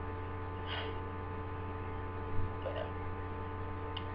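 Steady electrical hum from the recording setup, with a short breath about a second in and a soft bump a little past two seconds.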